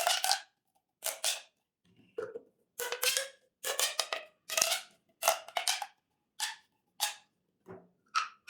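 Corrugated plastic pop tubes being stretched and squeezed, giving a run of short, crunchy popping bursts, about eleven of them at an uneven pace, each lasting under half a second.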